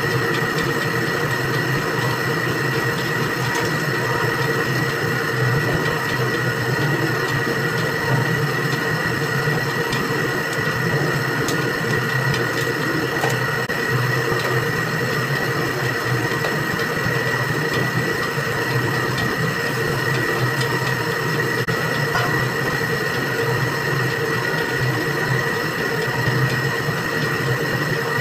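Electric dough mixer running steadily as its kneading shaft turns through a heavy batch of dough: an even motor hum with a constant high whine.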